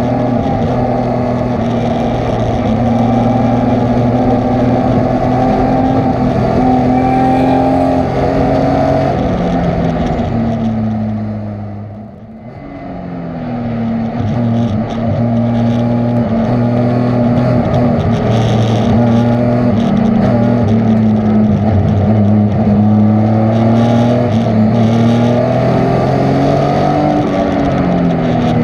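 A race car's engine heard from inside its cabin, running hard on track, its pitch stepping and gliding up and down with gear changes. About halfway through, the engine note drops and quietens briefly, then climbs back up under power.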